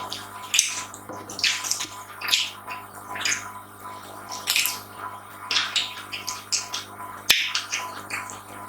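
Close-miked eating: wet chewing and lip-smacking in irregular short bursts, about one or two a second, over a faint steady electrical hum.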